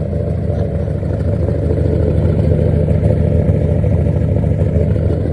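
Keith Black Hemi V8 in a 1969 Plymouth Road Runner gasser idling steadily, a deep rumble of rapid exhaust pulses.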